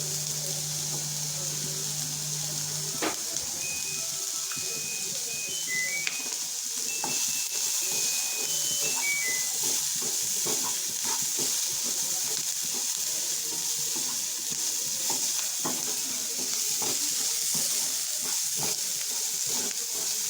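Chopped onion and capsicum sizzling in hot oil in a pan, with the occasional scrape of a spatula stirring them. A short high tune of beeps plays from about three to ten seconds in.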